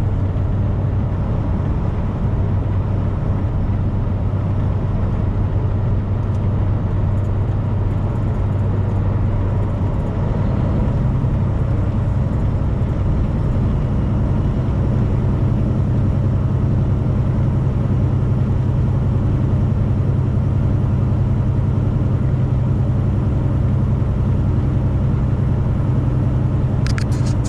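Steady in-cab drone of a 2018 Freightliner semi truck cruising on the highway, engine and road noise running at an even pitch.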